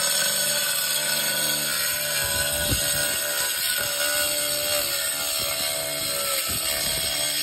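Angle grinder cutting through a roof tile: a steady high motor whine over the hiss of the disc grinding into the tile.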